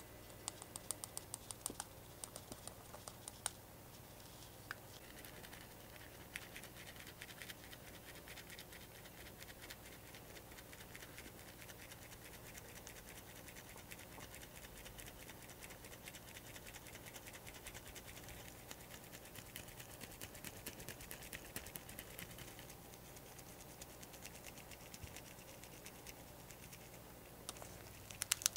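Faint fine scratching of a small wire-mesh strainer being tapped and rubbed as flocking powder is sifted onto a plastic model part, with a run of light, quick taps in the first few seconds and a few more near the end.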